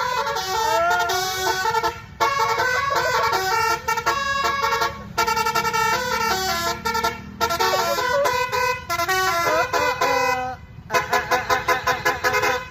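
Basuri telolet multi-tone horn playing a tune in stepped horn notes, in phrases split by short breaks, ending in a run of quick short toots.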